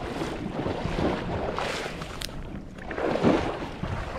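Horse wading through shallow lake water, its legs sloshing and splashing, with wind noise on the microphone.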